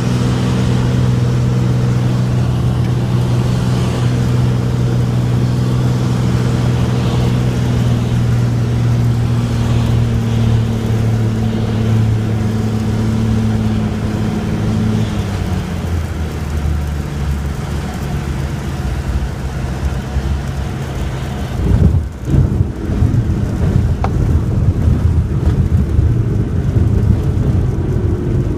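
Cirrus SR22's six-cylinder piston engine and propeller droning steadily on final approach, then dropping in pitch a little past halfway as power comes back. About three-quarters through there are sharp thumps followed by rumbling: the touchdown and roll-out on the runway.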